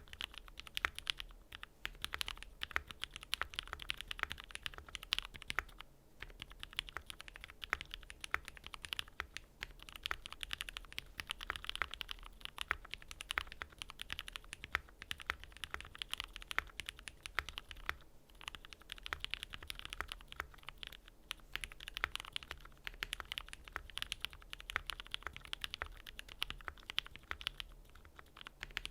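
Mechanical keyboard being typed on at a steady, quick pace: a Voice65 with lubed Cherry MX Black Hyperglide linear switches in a polycarbonate plate, GMK keycaps, and a foam-dampened case. The spacebar is fitted with a Gateron Black Ink switch. The clacking runs with a few brief pauses.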